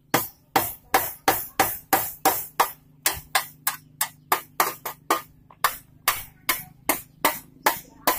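Hammer strikes in a steady run of about three sharp knocks a second, each dying away quickly.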